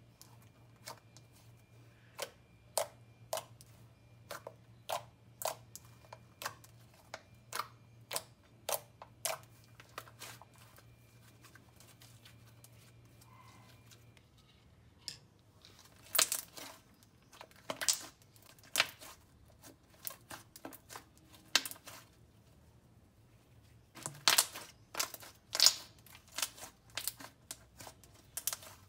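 Soft, creamy clicky slime being squeezed and pumped by hand, giving sharp clicks and pops as air pockets burst. They come about two a second at first, then after a lull in two louder clusters of rapid pops.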